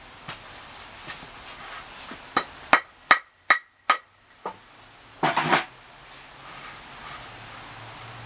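Hammer blows on wood: five sharp, ringing strikes in quick succession, roughly two or three a second. A second or so later comes a brief rough scraping noise.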